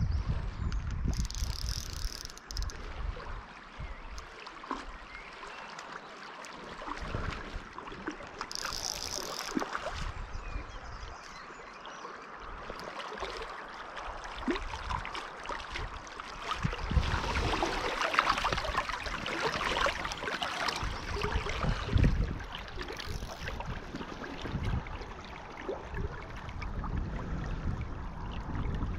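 Shallow river water rushing and rippling steadily, with scattered small clicks and low bumps of handling noise.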